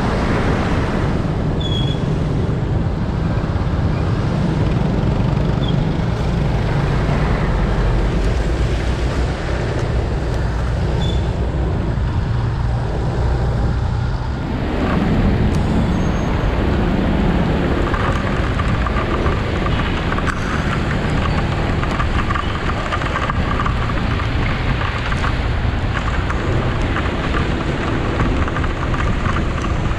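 Motor scooter engine running while riding, under a steady rush of noise from the wet road and rain. The engine note shifts about halfway through.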